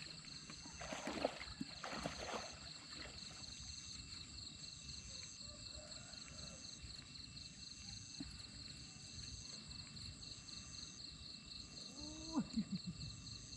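Water sloshing as a person wades through a shallow pond, loudest in the first two seconds or so. Under it, insects keep up a steady high chirring with a short beep-like note repeating about once a second. A brief gliding call comes near the end.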